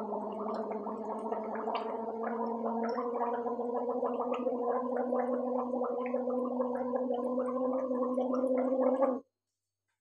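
A woman gargling warm salt water with her head tilted back. It is one long gargle, a steady hummed tone bubbling through the water, and it stops suddenly about nine seconds in.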